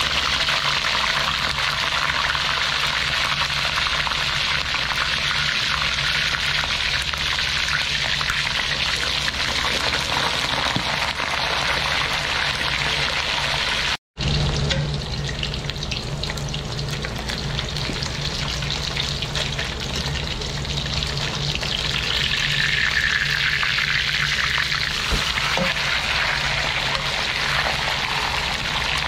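Whole fish deep-frying in hot oil in a wok: a dense, steady sizzle and crackle of spattering oil. It drops out for a split second about halfway through.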